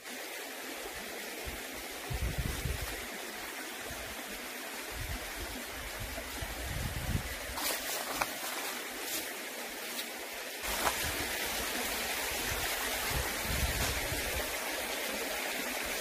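Mountain stream water running with a steady rushing hiss, broken by irregular low rumbles and a few faint clicks.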